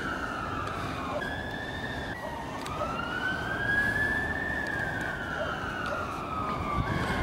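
A siren wailing, its single tone gliding slowly up and down over a few seconds per sweep, with a sudden jump in pitch about a second in and again near the end, over a steady low rush of background noise.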